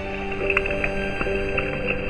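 Background music: held notes at several pitches, with a few light ticks.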